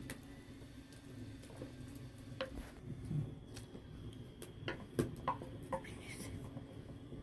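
Quiet scattered light clicks and knocks over a low steady background, a handful of them about two and a half seconds in and more between four and six seconds in.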